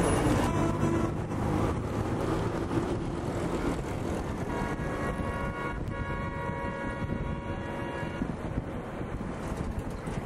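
Road traffic noise heard from a moving vehicle on a city street, with a steady vehicle horn held for about three or four seconds in the middle.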